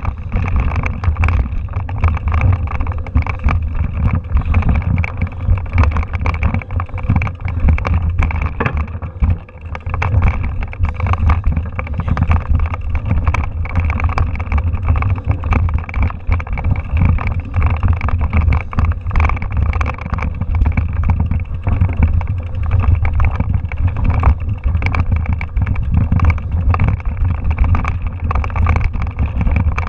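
Mountain bike rolling over a rocky dirt trail, heard through a handlebar-mounted camera: a constant low rumble with dense rattling and knocking from the bike and mount over the rocks, briefly quieter about nine seconds in.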